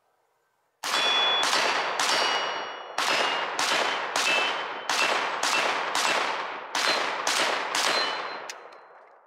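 A 3D-printed Plastikov v3 AK pistol, built on a Romanian PM90 'Draco' kit in 7.62×39, firing about a dozen semi-automatic shots at an uneven pace of roughly one every half second to a second. Each shot trails off in a long echo, and steel targets ring with a high ping after many of the hits.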